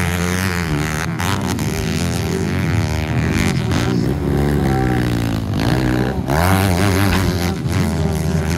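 Four-stroke motocross bikes racing on a dirt track, several engines overlapping, their pitch climbing and dropping as the riders work the throttle and shift gears.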